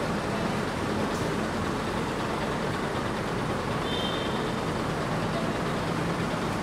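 Daewoo BH115 bus's diesel engine idling steadily, heard at the rear near the exhaust.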